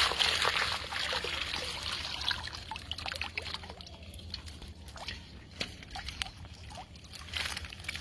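Water pouring and trickling out of a mesh fish trap as it is lifted out of shallow water, loudest at first and tapering off after about three seconds to scattered drips and small ticks, with a short splash near the end.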